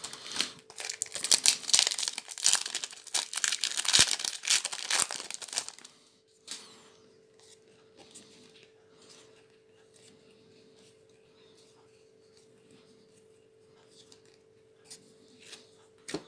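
Foil wrapper of a Magic: The Gathering booster pack being torn open and crinkled for about the first six seconds, then faint handling of the cards.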